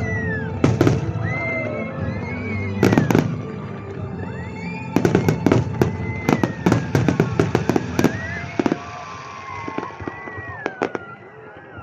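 Fireworks exploding in clusters of sharp cracks, with a dense rapid salvo from about five to eight seconds in, then a few scattered bangs near the end.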